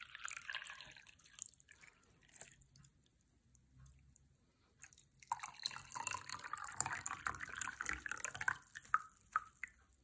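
Brewed green tea poured from a jug into a glass. A short trickle comes at the start, then a steady pour begins about five seconds in and stops shortly before the end.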